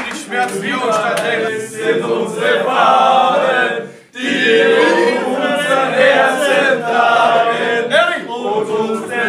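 A group of men singing a song together, reading the words off a sheet, with a short break about four seconds in.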